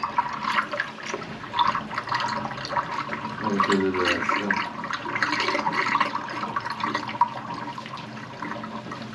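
Water running from a kitchen tap into one basin of a double sink, filling it, to test whether a grease-clogged drain line backs the water up into the other basin.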